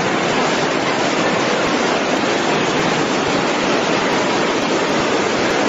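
Floodwater rushing fast along the track bed of a flooded subway tunnel: a loud, steady rush of water.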